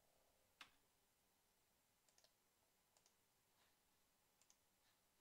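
Near silence broken by a few faint computer mouse and keyboard clicks. The first click, about half a second in, is the loudest; softer ones follow in pairs.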